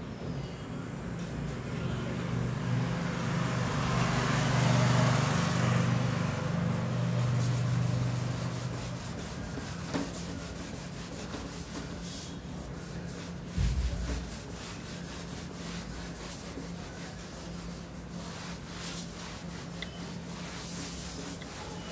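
A whiteboard being wiped with an eraser: steady rubbing strokes against the board, loudest in the first several seconds and lighter after that, with one dull knock about fourteen seconds in.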